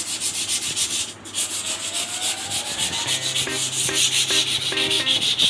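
Hand sanding a wooden plank with sandpaper: quick, even back-and-forth rubbing strokes over the board's surface.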